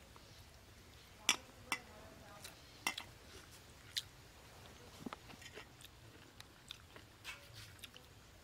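A person eating rice and curry with the fingers: soft chewing and mouth sounds, with a series of short sharp clicks and smacks at irregular intervals.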